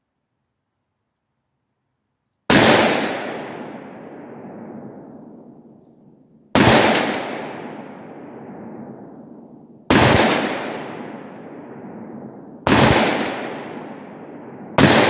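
Five .308 rifle shots from an AR-10 fitted with a Sharp Bros Badlands muzzle brake and blast shield, fired one at a time, about three to four seconds apart at first and the last two about two seconds apart. Each shot is followed by a long echoing tail.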